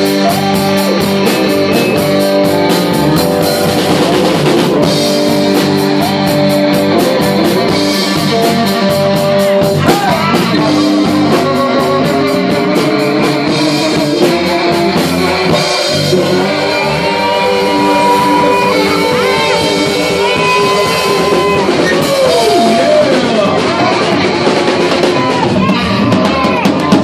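Live blues band playing an instrumental passage: electric guitars over bass and drum kit, with a lead guitar bending notes in the second half.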